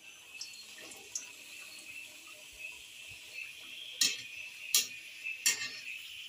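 Samosa deep-frying in hot oil in a steel kadhai, a steady sizzle. In the second half come three sharp metallic clinks, about three quarters of a second apart, as a wire skimmer strikes the pan.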